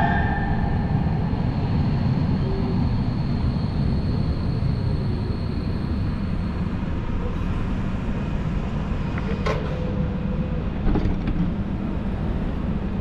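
Tram running through a tunnel: a steady low rolling rumble of wheels on rails, with a wheel squeal dying away in the first second and a faint high whine lingering until about halfway. A few short sharp clacks come later on.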